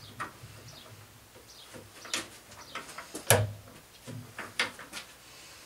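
Thick solid-wood cabinet doors being hung on their metal hinges and pushed shut against magnetic catches: a handful of separate wooden knocks and clicks, the sharpest about three seconds in.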